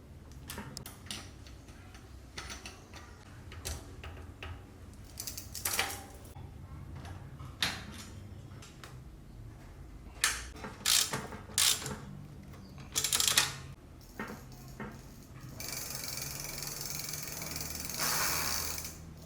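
Hand work on bicycle parts: scattered metal clicks, taps and ratcheting. Then a steady hiss for about three seconds near the end.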